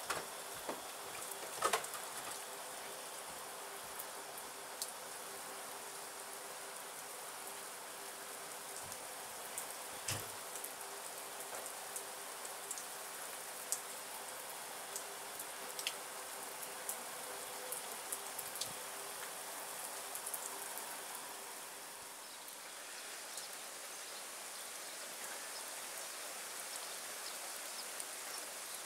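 Steady rain falling on a wet tarmac drive and lawn: an even hiss with scattered sharp ticks of single drops striking close by.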